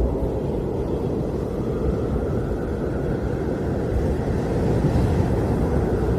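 Blizzard wind blowing in a steady, low rushing noise, swelling slightly in a gust partway through.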